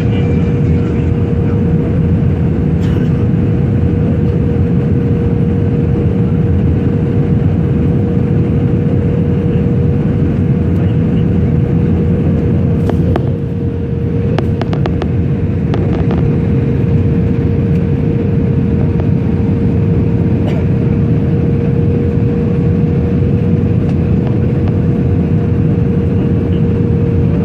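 Steady cabin noise of an airliner on approach: a loud, even low rumble with a steady hum-like tone above it, and a few faint clicks about halfway through.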